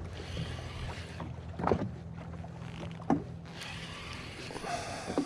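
Jet ski engine idling with a steady low hum under wind and water noise. Two sharp knocks come through, about two seconds in and again about a second later.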